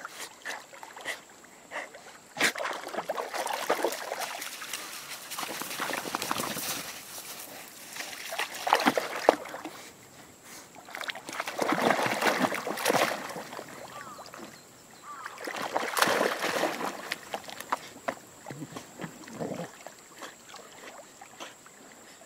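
Water sloshing and splashing as two dogs paddle and swim, coming in several uneven surges of a second or two each.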